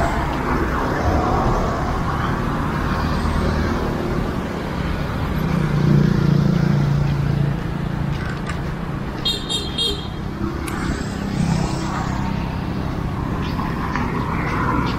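Road traffic on a busy beachfront street: a steady hum of passing cars and motorbikes, with a low drawn-out tone for about two seconds near the middle.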